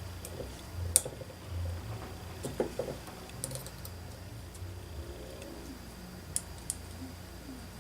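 Scattered light clicks and taps of small metal engine parts and tools being handled, five or six separate clicks over a steady low hum.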